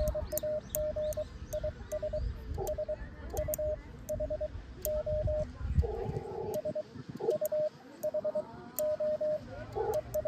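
Morse code (CW) sending: a steady beep keyed on and off into quick dits and dahs from a hand-worked key, spelling out 'ES HR OP NAME IS SUHO SUHO' and then starting 'ES QTH'. The keying stops briefly a little past the middle.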